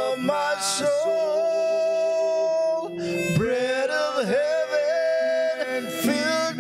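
Worship song: a voice singing long held notes over instrumental accompaniment.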